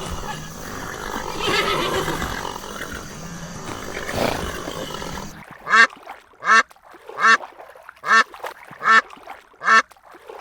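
A duck quacking in a steady series of short calls, about one every 0.8 seconds, after a stretch of noisy, windy outdoor background in which no clear call stands out.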